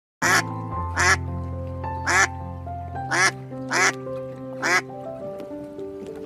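Duck quacking six times, short harsh calls about a second apart, over background music.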